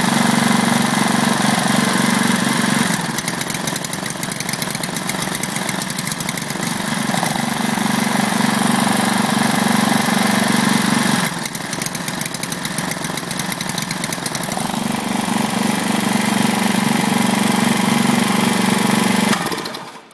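Lifan 5 HP single-cylinder small engine running with its oil-saturated air cleaner being refitted. Twice it falls into an uneven, lumpy running for a few seconds before steadying again, which is the rich running caused by the choked sponge pre-filter. It shuts off just before the end.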